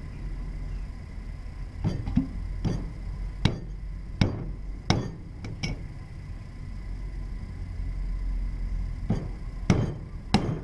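Sharp, irregular knocks of a cleaver striking garlic on a wooden chopping board: about seven in a row, then a pause and four more near the end, over a steady low rumble.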